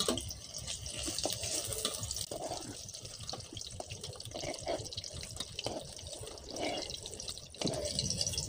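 Paneer cubes sizzling and crackling in hot mustard oil in a karahi, with small clicks and scrapes of a metal spatula as the fried cubes are lifted out.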